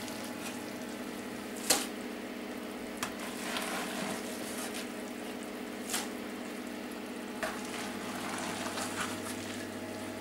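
Mesh sieve scooping wet, fermented plum pulp out of a plastic fermenting barrel: soft wet squelching and scraping, with a few sharp clicks spread through it, over a steady hum.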